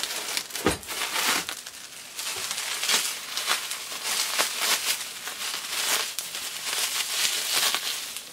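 Plastic bubble wrap crinkling and crackling in irregular bursts as it is rummaged through, gripped and pulled open by hand to unwrap a toy figure.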